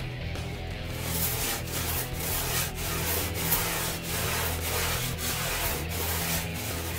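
Hand sanding of a skimboard blank with a small sanding block: quick back-and-forth rasping strokes, about three a second, starting about a second in.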